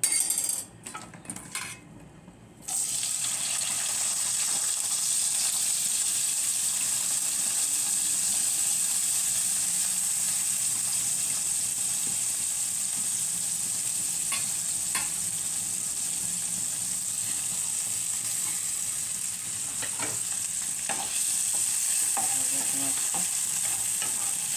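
Sliced onions frying in hot oil in a pan. A few knocks come first; then, about three seconds in, a loud, steady sizzle starts suddenly as the onions hit the oil, with a few clicks of stirring later on.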